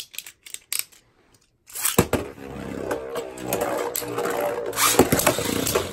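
Beyblade Burst spinning tops launched into a plastic stadium: a sharp clack as the first top hits the stadium about two seconds in, then the top whirring and scraping around the plastic bowl. A second sharp clack just before the end as the second top is launched in, and both spin on. A few light clicks come before the first launch.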